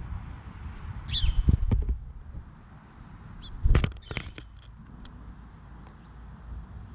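Birds at a feeder: a few sharp knocks and scrapes, about a second in and again near four seconds, with a couple of brief high chirps, over a steady low rumble.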